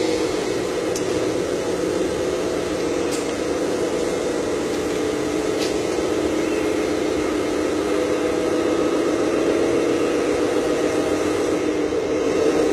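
1/14-scale RC 6x6 dump truck driving: a steady mechanical hum that grows slightly louder near the end as the truck comes close.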